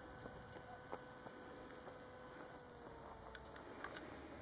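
Faint, steady whine of the AXN Floater RC plane's electric motor flying overhead, sinking slightly in pitch about three seconds in, with a few light clicks.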